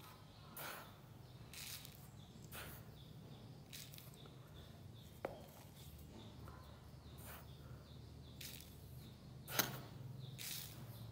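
Silica gel flower-drying powder scooped with a plastic spoon and poured into a plastic container: faint, short hissing pours about once a second, with a light click of the spoon against the container about five seconds in.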